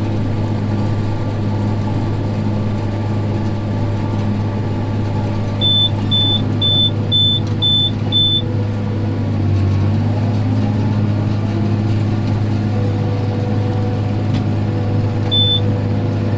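Tractor engine running steadily while pulling a conventional baler under light load. About halfway through there is a run of six short, high-pitched beeps, and one more beep near the end.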